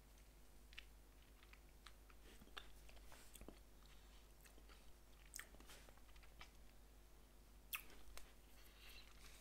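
Faint, wet mouth clicks and lip smacks from someone savouring a sip of whisky, scattered irregularly, with one sharper click about three-quarters of the way through.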